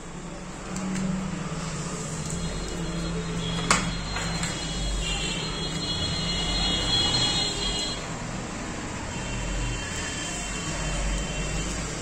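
Hands handling a bare power-adapter circuit board and its wires on a wooden bench, with one sharp click a little under four seconds in, over a steady low rumble.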